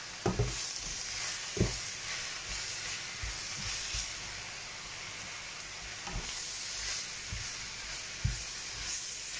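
Spinach and garlic sizzling in olive oil in a frying pan, stirred with a wooden spoon that knocks against the pan a few times.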